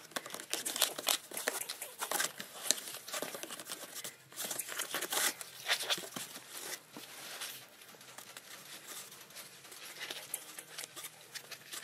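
Ferret scrabbling inside a cardboard box: quick irregular scratches, knocks and rustles of cardboard. It is busiest in the first half and thins out later.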